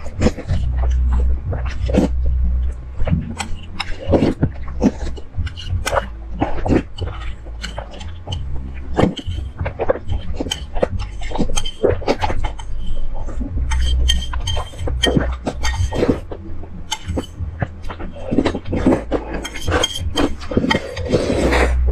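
Close-miked slurping and chewing of spicy instant noodles, with many wet mouth clicks and the odd clink of chopsticks against the bowl.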